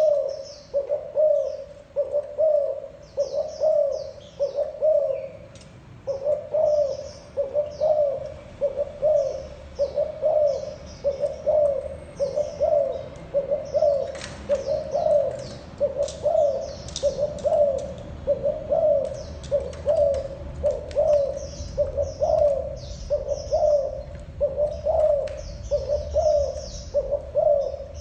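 Spotted dove giving its bowing coo ('gù'): short low coo notes repeated about once a second, with a brief pause about five seconds in. Faint high chirps from small birds sound above.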